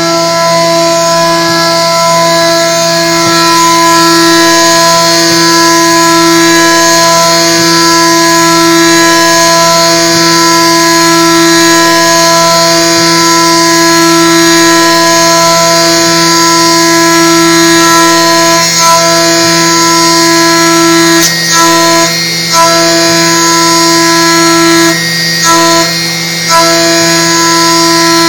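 Haas VF2 CNC mill's end mill cutting a pocket in an aluminium soft jaw on a high-speed toolpath, giving off a loud, steady pitched tone that holds one note. Several short breaks and dips come in the last third as the tool changes direction.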